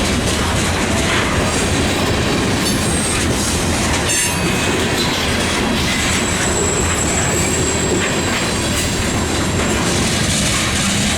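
Freight train rolling past: a steady rumble with clattering of wheels over the rail, and a thin high wheel squeal from about six to nine seconds in.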